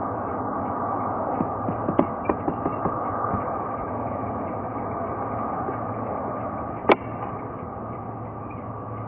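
Airbus A320neo's CFM LEAP-1A turbofans at taxi idle, a steady hum. A few light clicks come about two to three seconds in, and one sharp click about seven seconds in.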